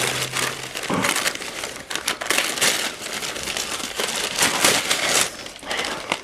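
Crumpled brown kraft packing paper crinkling and rustling in irregular bursts as it is handled and pulled from a cardboard shipping box.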